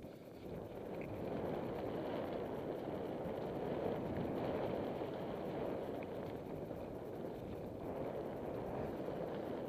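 Steady rushing noise of a mountain bike riding fast down a dirt singletrack: tyres rolling on dirt with wind across the helmet-mounted microphone, building up over the first second or so.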